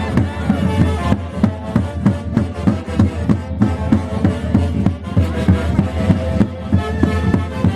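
Live Santiago music from a Huancayo orquesta, with a steady drum beat under held melody lines.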